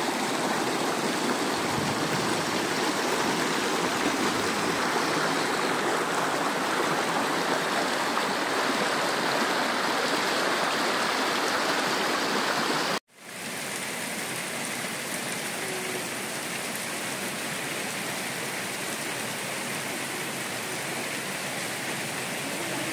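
Shallow mountain river rushing over rocks, a steady water noise. About halfway through it cuts off abruptly and gives way to a quieter, steady rain.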